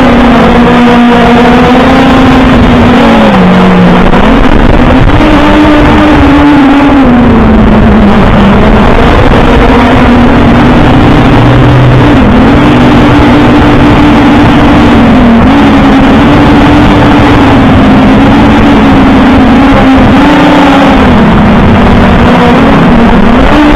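OVERMAX X-Bee Drone 8.0 quadcopter's motors and propellers buzzing loudly, heard through its onboard camera microphone. The pitch steps up and down every few seconds as the motors speed up and slow down, over a heavy rushing noise.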